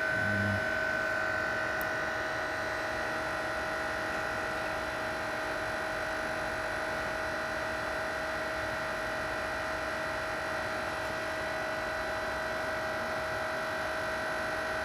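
Powered-up Harrison Alpha 460 CNC lathe giving a steady electric whine from its motors and drives, with no cutting going on. A brief low thump comes just after the start.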